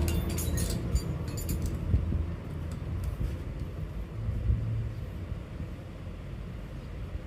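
Low rumble of a motor vehicle going by, fading away over several seconds, with a quick run of light clicks in the first two seconds.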